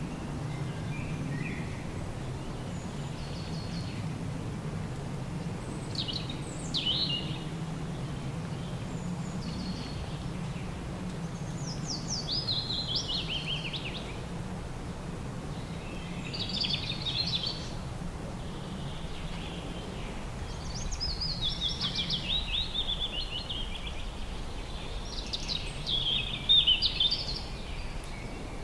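A songbird singing short phrases that fall in pitch, repeated every few seconds, over a steady low rumble of background noise.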